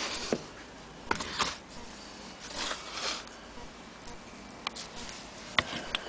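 Handling noise from hands on a small antique Willcox & Gibbs sewing machine: scattered light clicks and taps, a brief rustle in the middle, and a few sharp ticks near the end.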